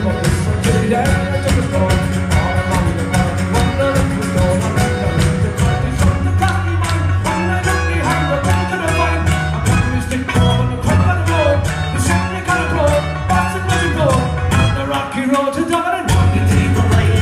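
Live folk band playing an up-tempo tune on accordion, acoustic guitar and bodhrán over a steady beat and bass. The bass drops out for about a second near the end, then the full band comes back in.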